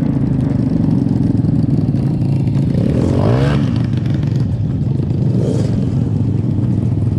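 Grass kart's Lifan engine running at low revs on a kart rattling over grass, revved up and back down once about three seconds in and more gently once more past the middle.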